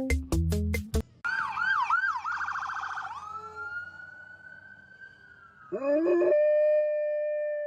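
A few loud knocks, then a siren yelping in quick up-and-down sweeps that slide into a long, steady wail. Near the end, a dog howls: its voice rises and then holds one long note.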